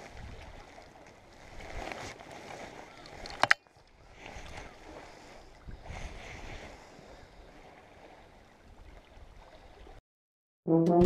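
Sea water sloshing and lapping among the concrete tetrapods of a breakwater, swelling and easing every couple of seconds, with a sharp click about three and a half seconds in. Piano music starts right at the end.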